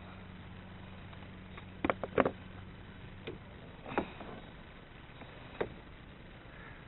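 A few sharp knocks and clicks over a steady low hum, the loudest a pair about two seconds in, then single ones spread through the rest: a landed mulloway and fishing gear being handled aboard a kayak.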